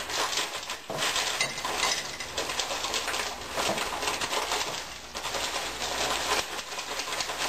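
Frozen mixed vegetables clattering into a loaf pan and being spread around: a dense, continuous rattle of many small frozen pieces, with brief lulls about a second in and about five seconds in.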